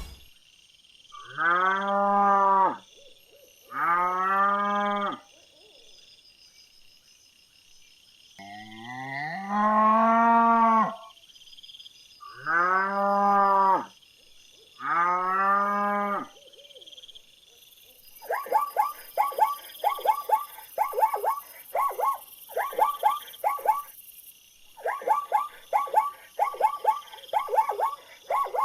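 Cattle mooing: about five drawn-out calls with gaps between them. About two-thirds of the way in, a frog takes over, croaking in rapid bursts of short repeated calls.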